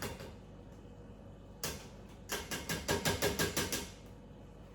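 Used coffee grounds being knocked out of their container into the food-waste bucket: one tap, then a quick run of sharp taps, about eight a second, for over a second.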